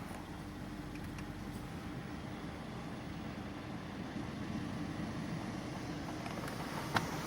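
Peugeot 508's 1.6 THP turbocharged four-cylinder petrol engine running steadily with a knock in it, and a single sharp click near the end.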